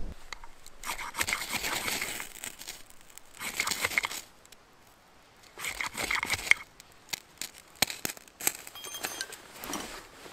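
A knife shaving curls off a split stick of wood in three rasping strokes of about a second each, followed by a few sharp clicks.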